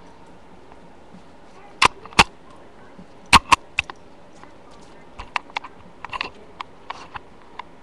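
Irregular sharp clicks and knocks: two loud ones about two seconds in, three more about a second later, then a scatter of lighter ticks near the end.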